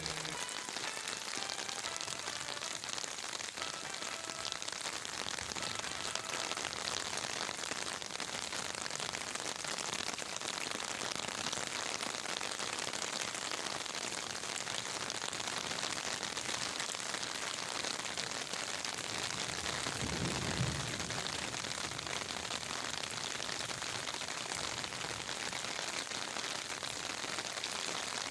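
Heavy rain falling steadily on garden leaves, an even hiss of drops. About two-thirds of the way through there is a brief low rumble.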